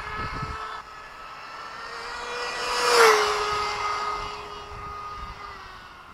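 Arrma Vorza RC car with a 2200kv brushless motor on 6S and a 30-tooth pinion, going flat out on a speed run. The high whine of motor and drivetrain grows louder, drops in pitch as the car passes about three seconds in, then fades away.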